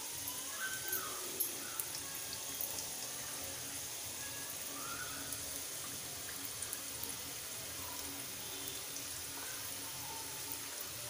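Samosas deep-frying in hot oil in a kadhai on a medium flame: a steady sizzling hiss with small scattered crackles as the oil bubbles around them.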